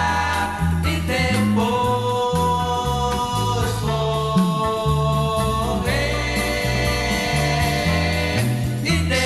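Late-1960s Brazilian pop medley from a vinyl LP: held chords that change every couple of seconds, with voices singing without clear words, over a bouncing bass line.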